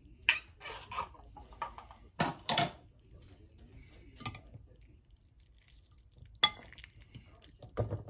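A metal fork clinking, knocking and scraping against a ceramic bowl while poached eggs are separated in it: a run of irregular sharp clinks, the loudest about six and a half seconds in.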